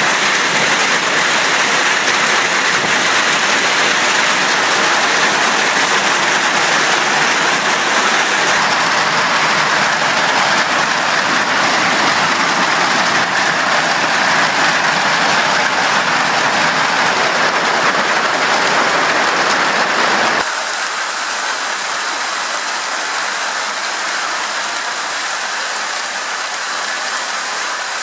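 Hailstorm: hail and heavy rain pelting down in a dense, steady rush. About two-thirds of the way through, the sound drops suddenly to a quieter, thinner rush.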